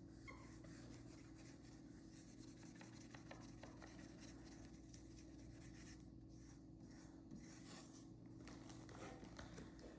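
Faint scratching and rubbing of a dry-erase marker and its eraser on a magnetic dry-erase chore chart, over a steady low hum.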